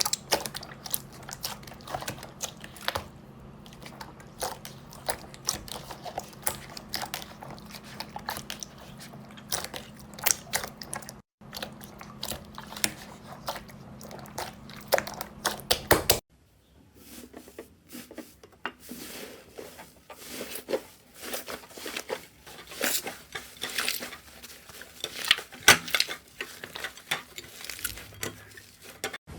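Slime being pressed and squeezed: a dense, irregular stream of small sticky pops and crackles. The background changes about 16 seconds in, as another clip begins.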